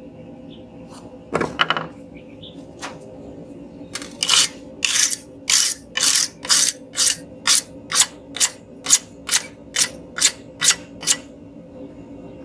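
Hand hammer striking hot steel on an anvil: a single knock about a second and a half in, then a steady run of about fifteen blows at roughly two a second. The blows are knocking the last corners of a taper in to make a round point.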